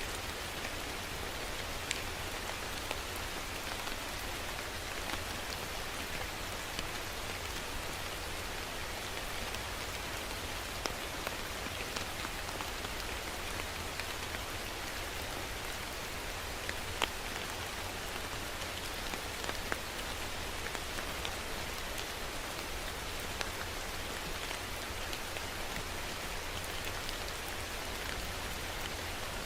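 Steady rain falling, with individual drops ticking sharply now and then; one stands out a little past halfway.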